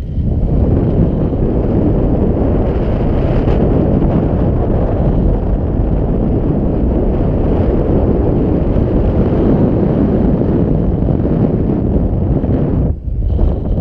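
Wind from the paraglider's flight rushing over the action camera's microphone: a loud, steady low rumble of buffeting air that dips for a moment near the end.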